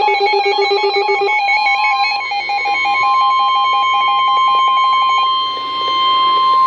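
NOAA Weather Radio alert: a rapid pulsing electronic alarm beep, joined just over a second in by the weather radio's steady single-pitch warning alarm tone. The pulsing stops about five seconds in while the steady tone holds. The tone announces an incoming severe thunderstorm warning.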